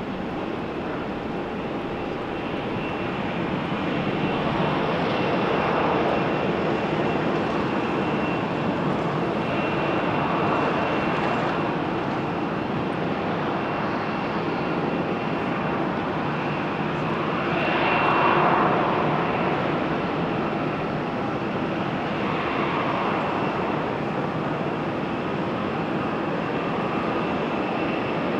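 Jet airliner's engines running: a steady rush with a thin high whine, swelling a little around the middle.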